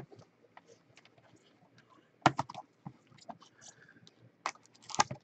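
Trading cards and their packaging being handled: a scatter of light clicks and snaps, with louder clusters about two seconds in and near the end.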